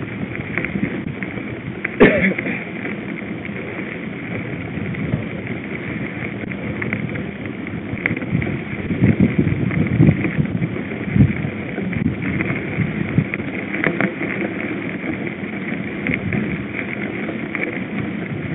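Mountain bikes riding over a dirt track: steady tyre and wind noise with the bike rattling. There is a sharp knock about two seconds in and a cluster of bumps around the middle.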